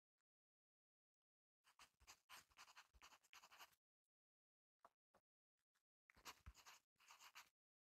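Graphite pencil writing on paper, faint scratching strokes. There are two runs of scratching, about two seconds and a second and a half long, with a few brief ticks between them.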